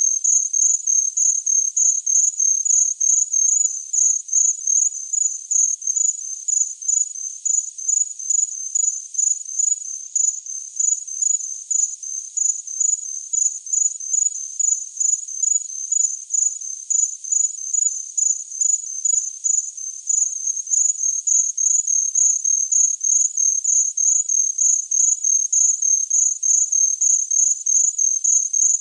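A cricket chirping: short, high chirps repeating evenly about three times a second, without a break.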